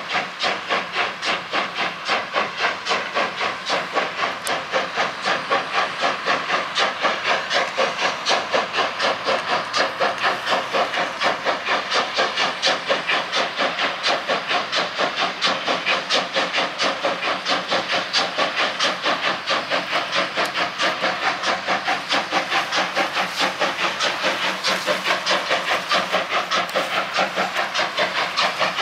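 Steam locomotive working a long freight train, its exhaust chuffing in rapid, even beats, about four a second, over a steady hiss of steam.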